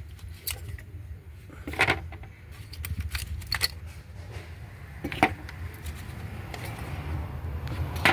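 Hard plastic clacks and knocks as ignition coils are twisted up out of the spark plug wells of a Nissan Altima 2.5 L four-cylinder engine and tossed aside: a handful of sharp clacks a second or two apart, over a steady low hum.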